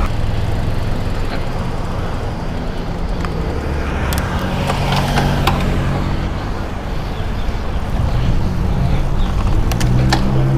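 Wind rushing over the microphone of a bicycle riding at speed in traffic, with the hum of motor vehicle engines alongside from about four seconds in and again near the end. A few sharp clicks.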